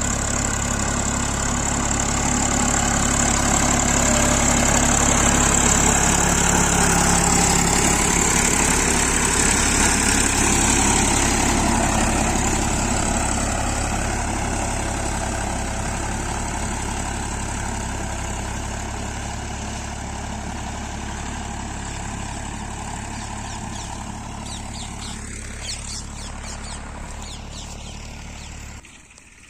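Tractor's diesel engine running steadily under ploughing load, with a high whine above the engine note. It grows louder over the first few seconds, then slowly fades, and cuts off suddenly near the end.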